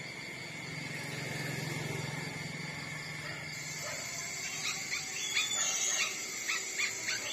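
Nursing puppies squeaking: a run of short, high squeaks in the second half, over a faint low hum in the first few seconds.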